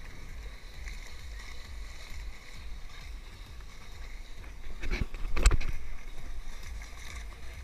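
Wind buffeting a wrist-mounted camera's microphone as the bungee jumper bounces and swings on the cord: a steady low rumble. A few sharp knocks come about five seconds in.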